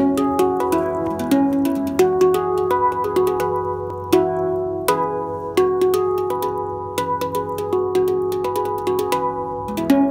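Handpan (hang drum) played with the fingertips: a quick, continuous stream of struck steel notes, several a second, each ringing on and overlapping the next.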